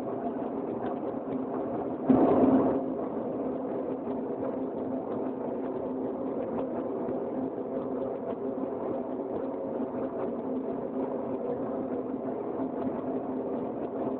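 Steady industrial machinery hum in a furnace plant: a continuous low drone with several constant tones, and a brief louder burst about two seconds in.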